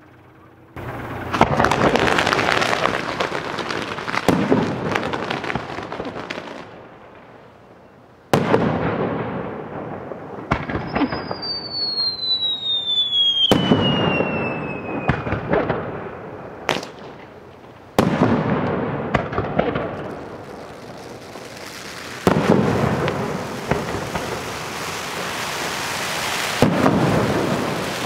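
Fireworks going off: about seven sudden bangs, each trailing into hissing and crackling sprays that fade over a few seconds. A long whistle falls in pitch from about eleven to fifteen seconds in.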